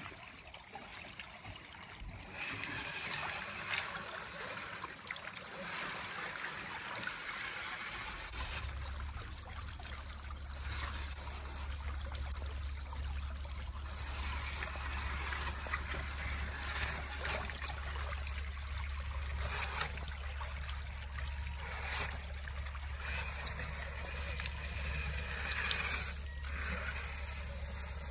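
Shallow creek water trickling and babbling over rocks, with a few scattered knocks. A steady low rumble sets in about eight seconds in.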